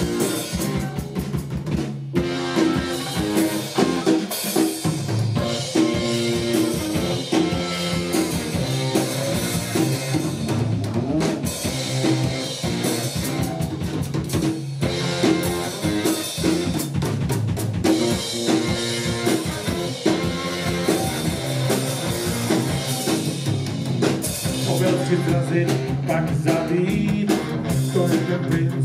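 A live rock band plays an instrumental passage on electric guitar, bass guitar and drum kit, with no singing.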